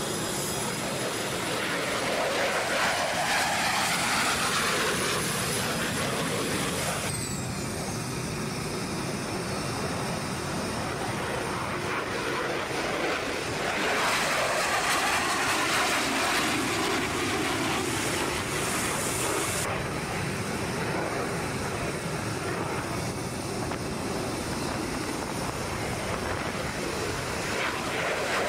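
Jet noise from an F-22 Raptor's two afterburning turbofan engines as the fighter climbs out and passes overhead. It is a steady rush that swells and eases, changing abruptly about 7, 14 and 20 seconds in where separate passes are cut together.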